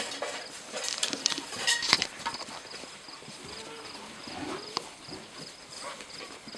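Puppies scuffling and playing on straw bedding: rustling straw and quick scratchy clicks of paws and bodies, busiest between about one and two seconds in, then lighter scuffs.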